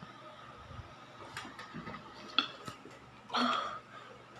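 Light clicks and taps of handling, with a sharper tap about two and a half seconds in and a short rustling burst near the end as a plastic water bottle is handled.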